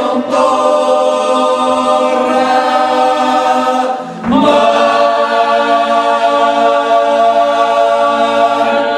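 Male a cappella choir singing in close harmony: one sustained chord, a short breath about four seconds in, then a long held closing chord.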